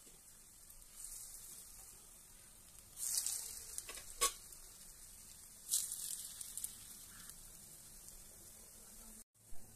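Paniyaram batter frying in hot oil in the cavities of a paniyaram pan: a steady high sizzle that swells louder about one, three and six seconds in as fresh batter goes into the oil. There is a single sharp click about four seconds in.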